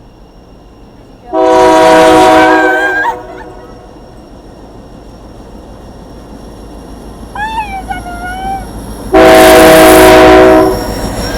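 Freight-train locomotive air horn sounding two long chord blasts of several steady tones, each just under two seconds and about eight seconds apart, over the low rumble of the train passing below.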